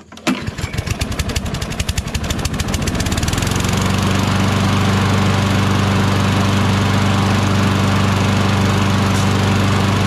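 Craftsman push mower's Briggs & Stratton Quantum 6.75 single-cylinder four-stroke engine starting up right away, picking up speed over the first few seconds, then running steadily. It sounds good, no longer choking, though the owner suspects the carburetor still needs attention.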